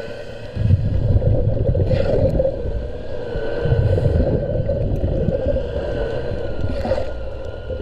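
Hull cleaning heard underwater: a steady mechanical hum with a thin wavering whine above it, and low rumbling scrubbing surges about a second in and again near four seconds.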